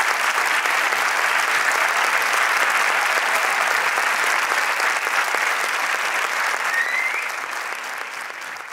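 Audience applause at the curtain call, a dense steady clapping that fades out over the last couple of seconds.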